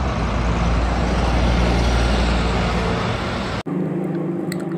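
Engine and road noise of a red London double-decker bus moving along a street, a steady low engine hum. It cuts off abruptly about three and a half seconds in, giving way to a quieter steady hum with a few faint clicks.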